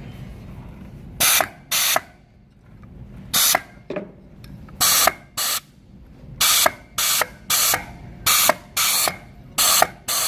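Short, sharp blasts of compressed air from an air nozzle into the reverse input clutch on the transmission pump, about a dozen hisses, often in quick pairs. This is an air check: the air applies the clutch piston to show that the new seals hold and the clutch engages.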